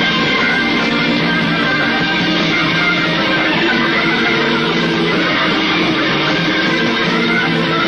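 Live rock band playing at full volume, with electric guitars to the fore.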